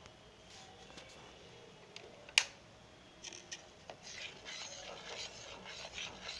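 A spoon stirring milk and rice inside an electric kettle: a single sharp clink about two seconds in, then a couple of seconds of irregular scraping strokes near the end.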